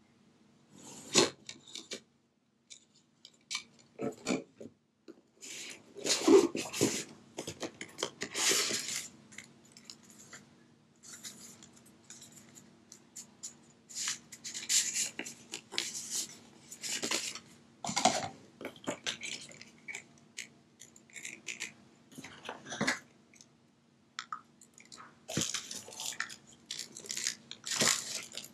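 Cardboard and paper packaging being handled: box parts lifted, slid and set down, with a paper sleeve and, near the end, plastic bags crinkling, in irregular short rustles and scrapes. A faint steady hum lies underneath.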